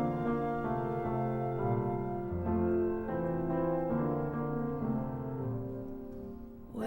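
Slow solo piano music, held chords changing every second or two.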